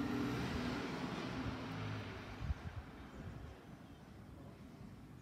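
Steady rushing vehicle noise that fades away over about three seconds, with one short knock about two and a half seconds in.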